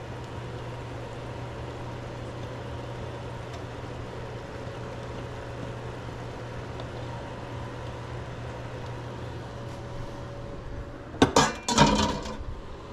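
Pots and utensils clattering near the end: a quick burst of metal knocks and clinks lasting about a second, over a steady background hum.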